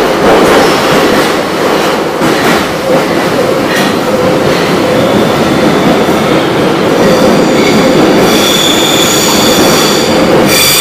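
Metro train running through a tunnel, heard from inside the carriage: a loud, steady rumble and rattle of the wheels on the track. From about seven seconds in, a high whine of several steady tones joins it and grows stronger.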